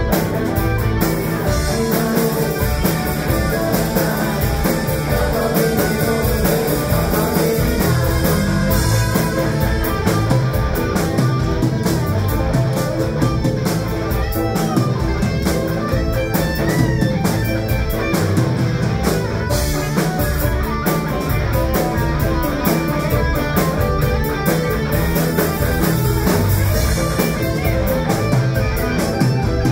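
Live rock band playing: electric guitar to the fore over bass guitar, drum kit and keyboards.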